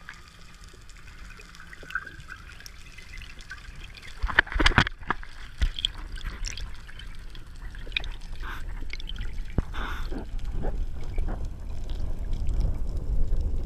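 Underwater recording of a freediver swimming with long fins: bubbles trickling and gurgling and water rushing past the camera. There are a few sharp clicks about four to five seconds in, and a low rush that grows louder toward the end.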